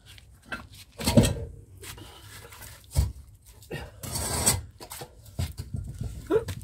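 Boat trailer axle with its leaf spring being dragged out and handled on brick pavers: a heavy metal knock about a second in, another near three seconds, and a rasping scrape of steel on brick around four seconds, with smaller knocks and rubs between.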